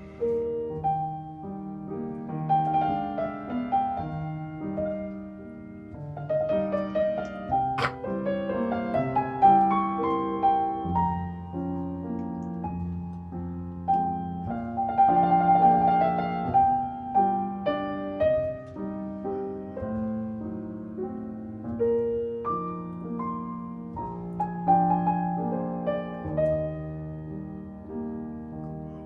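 Background piano music: a melody over held chords, with notes lasting a second or two.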